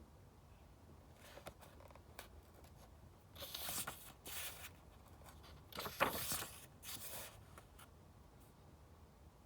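Paper rustling in several short bursts with a few soft taps before them, as a book's page is handled and turned.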